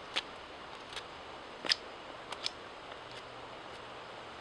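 A puukko knife shaving the point of a wooden tent stake: about six short, crisp slicing strokes, irregularly spaced, the loudest near the middle.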